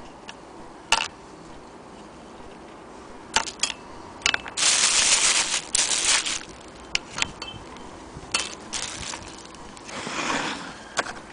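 A plastic bag crinkling as it is handled, loudest for about two seconds around the middle and again briefly near the end, among scattered clicks and knocks from handling the wooden base and cast-iron handwheel of a hand-crank sewing machine.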